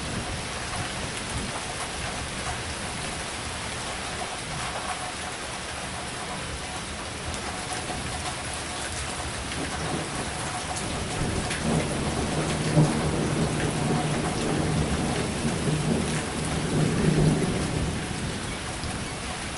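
Rain pouring steadily in a severe thunderstorm. About halfway through, a long low rumble of thunder swells in, then fades near the end.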